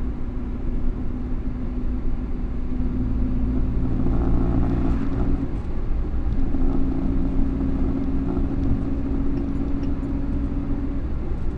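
1962 Morris Minor 1000's A-series four-cylinder engine running under way, with road noise, heard from inside the cabin. The engine note drops away briefly about halfway through and picks up again, then drops once more near the end.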